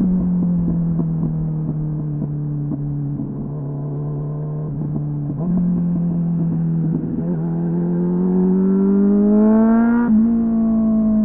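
Suzuki GSF 600 Bandit's inline-four engine through a loud slip-on exhaust with a homemade dB-killer, heard from the rider's seat. The note falls as the bike slows, with scattered crackles. It steps up about five seconds in, then rises steadily under acceleration, with a brief break for a gear change near the end.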